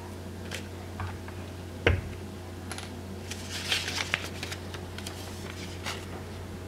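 Handling noises on a tabletop: a single thump about two seconds in as something is set down, then a cluster of light clicks and a crinkling rustle a second or so later, and a last click near the end, over a steady low hum.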